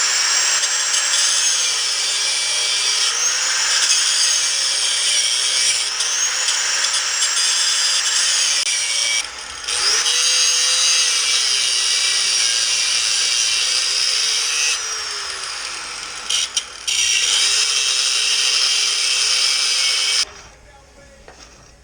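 A power tool running almost nonstop, its pitch repeatedly sagging and recovering as it bites into metal, with two brief pauses. It stops about 20 seconds in.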